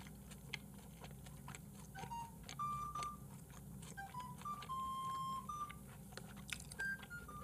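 A quiet melody of pure, beep-like notes stepping between pitches, under faint wet clicks of someone chewing raw beef with the mouth closed.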